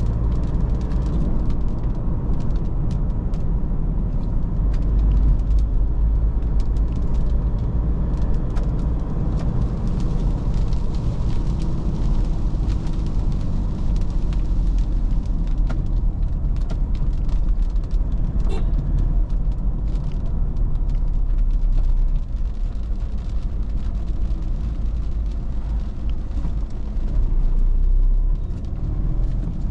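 Toyota Fortuner's 3.0-litre D4D four-cylinder turbodiesel running while driving, with steady low rumble and road noise and scattered small ticks throughout.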